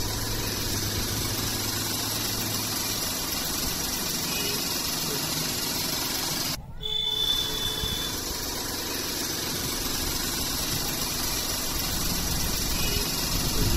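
A steady hiss that breaks off for a moment about six and a half seconds in.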